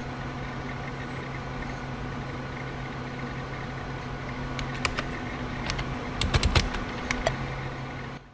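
A steady low hum with hiss, with a cluster of sharp clicks and a few dull thumps between about five and seven and a half seconds in; it cuts off just before the end.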